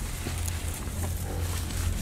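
Humped zebu bull eating elephant grass: scattered crunching and rustling of the forage as it chews, over a steady low rumble.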